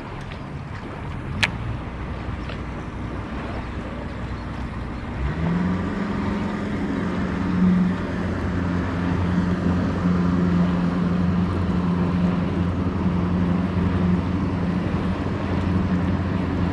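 Motorboat engine running steadily, its pitch stepping up about five seconds in and then holding, louder. A single sharp click about a second and a half in.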